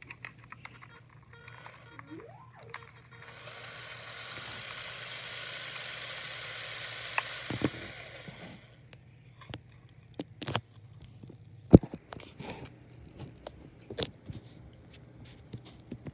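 Small electric LEGO motor whirring as it spins the model jet engine's fan, running up and dying away over about five seconds. Then scattered clicks and knocks of plastic bricks being handled.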